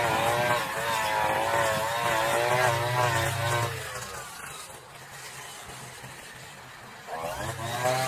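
Brush cutter engine running at high revs, its pitch wavering up and down as it cuts thick tall grass. About halfway through the throttle is let off and the engine drops to a lower, quieter note, then revs back up near the end.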